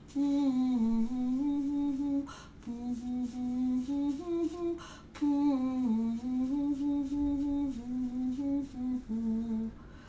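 A woman humming a simple song with her lips closed, as a semi-occluded vocal tract warm-up exercise. The tune moves in small steps, in three phrases with a quick breath between them.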